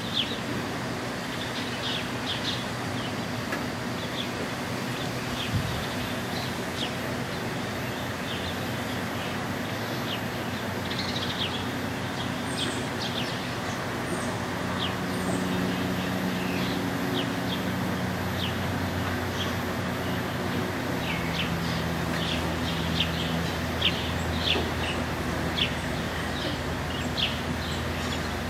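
Outdoor background: many short bird chirps scattered throughout, over the steady low drone of a distant engine that grows stronger past the middle.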